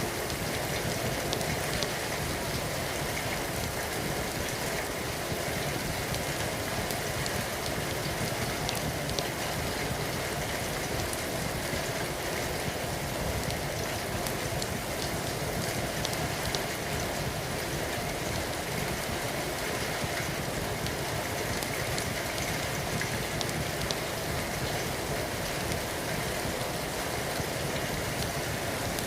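Steady heavy rain falling, an even hiss with scattered small ticks of drops.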